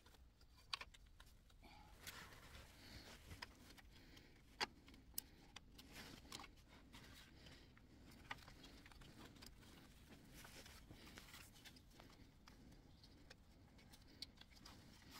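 Near silence: faint room tone with a few scattered light clicks and taps.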